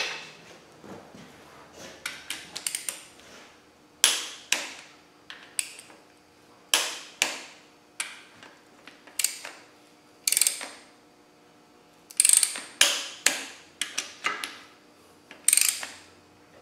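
A ratcheting torque wrench tightening the bearing-cap bolts on a Land Rover 300Tdi diesel bottom end. Each swing brings a quick run of sharp ratchet clicks, repeated about every second with short pauses.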